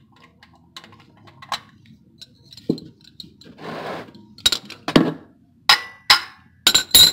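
Metal wrench clinking against a spin-on oil filter and the metal around it. First a few faint clicks and a dull knock, then a short rustle, then a run of sharp, ringing metallic clinks in the second half.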